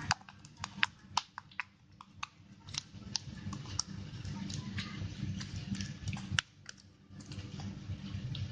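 Irregular sharp clicks and taps, a few to several a second, from slime being stirred in a container, over a steady low hum.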